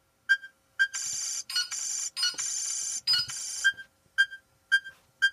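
Electronic beeping: short high beeps about twice a second, broken up by several held, buzzy electronic tones lasting about half a second to a second each.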